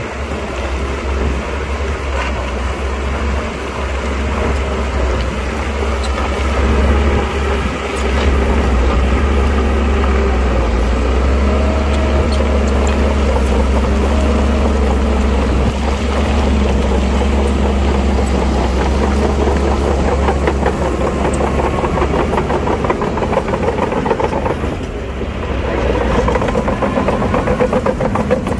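Shantui DH17 C2 crawler bulldozer's diesel engine running steadily and loudly close by, with a short dip in level about 25 seconds in.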